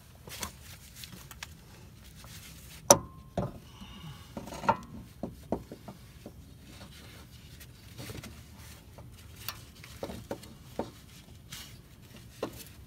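Irregular metallic clinks, knocks and scrapes as a replacement starter motor is worked into place against the Infiniti G35's transmission and brackets. The sharpest knock comes about three seconds in.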